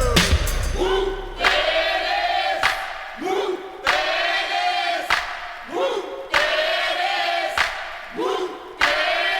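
Crowd chanting in a steady rhythm, one shouted call about every two and a half seconds, each sliding up and then held for about a second, with no beat behind it.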